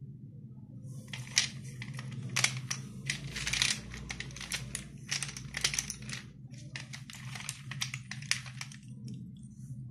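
Broken slate pencil pieces clattering against each other and the metal plate as a hand stirs through the pile: a dense run of clicks and rattles that starts about a second in, pauses briefly past the middle, and dies away near the end.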